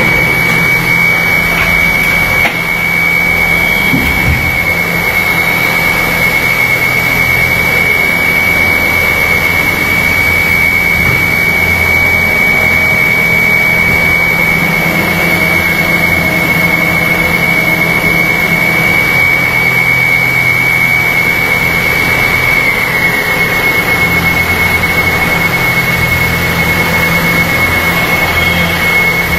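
Injection molding machine running steadily, a constant mechanical noise with a steady high whine over a low hum.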